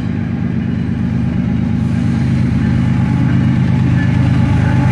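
Diesel freight locomotive approaching head-on, its engine rumble growing steadily louder as it nears.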